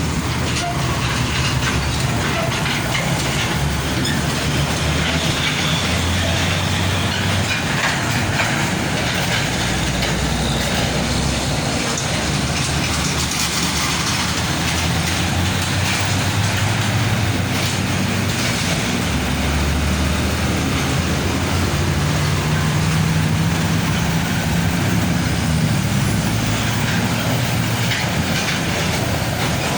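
Heavy trucks passing close by on a road: a continuous mix of engine and tyre noise, with low engine drones that swell and fade as vehicles go past.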